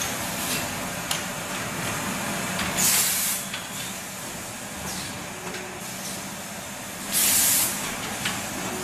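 Tissue-paper converting machine running with a steady hum and scattered clicks, broken twice, about three seconds in and again about seven seconds in, by a short sharp hiss of compressed air venting from its pneumatic cylinder.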